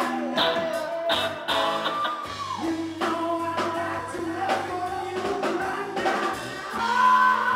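Live rock band playing: a man singing over electric guitars and a steady drum-kit beat, with a long held note near the end.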